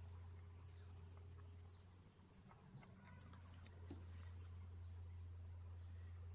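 Near silence: a faint steady high-pitched cricket trill over a low steady hum.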